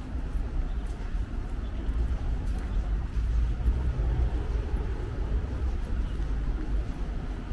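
Outdoor city ambience dominated by a steady low rumble that swells and sags, with a few faint clicks.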